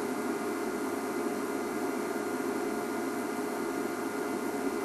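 Steady hiss with a faint steady hum, with no distinct events.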